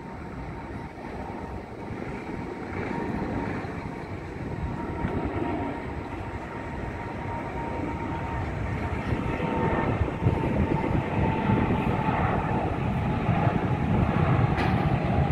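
Boeing 777-300ER's twin GE90 turbofans running at takeoff thrust during the takeoff roll. A steady rumble with a thin whine in it grows gradually louder as the jet accelerates down the runway.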